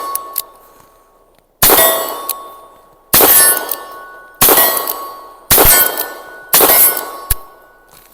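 Five shots from a Cimarron .45 Long Colt revolver firing Aguila 200-grain rounds, spaced about one to one and a half seconds apart. Each shot is followed by a metallic ringing that fades within about a second.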